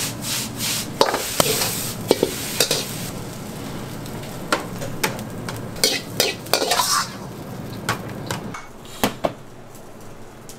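Food sizzling in a hot pan while a metal utensil stirs and knocks against it in a series of sharp clacks. The sizzle dies down after about three seconds, and the knocking stops near the end.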